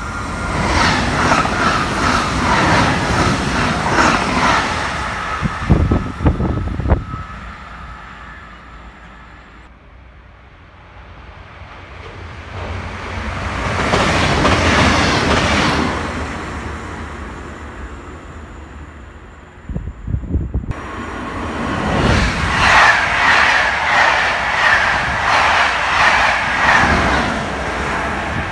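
Trains passing through a station. Two coupled X 73500 diesel TER railcars rush past in the middle, rising and then fading. From about three-quarters of the way in, an electric locomotive hauling coaches comes through with repeated wheel clacks and a steady whine; another loud train passage fills the opening seconds.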